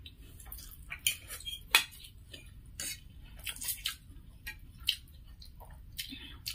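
Metal forks clicking and scraping against plastic plates as two people twirl and eat spicy instant noodles, with short noodle slurps in between. The clicks are scattered and irregular.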